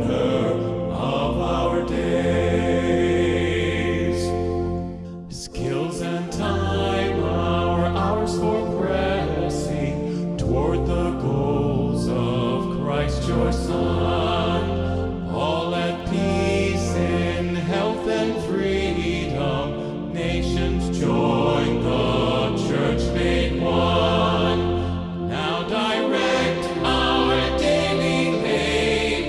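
A hymn sung by voices over held instrumental accompaniment with deep sustained bass notes, with a brief pause between phrases about five seconds in.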